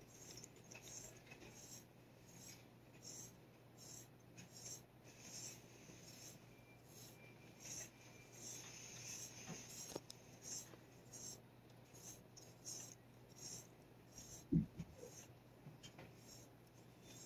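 Faint scratchy brushing strokes of a small brush on a stick rubbing over a cat's head fur, about two strokes a second, with one soft thump about two-thirds of the way through.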